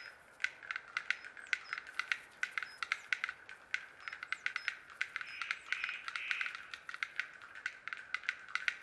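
Male black-billed capercaillie's display song on the lek: a run of dry clacking clicks, several a second, irregularly spaced.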